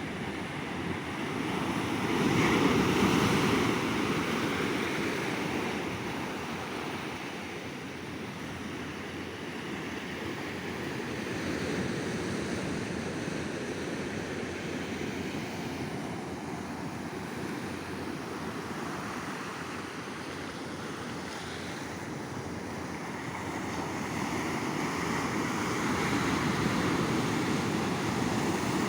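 Sea waves breaking and washing up a beach in a steady wash of surf that swells and ebbs. The loudest wave comes about three seconds in, and another builds near the end.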